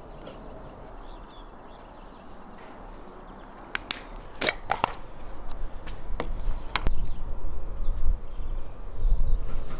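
A few sharp clicks and knocks from a plastic sour cream tub being opened and a metal spoon handled at a ceramic bowl. The clicks start about four seconds in and are loudest a little after that. A low rumble grows in the second half.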